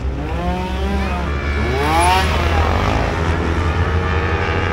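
Trials motorcycle engine revved in throttle blips, its pitch falling once and then rising sharply about two seconds in, over a steady low drone.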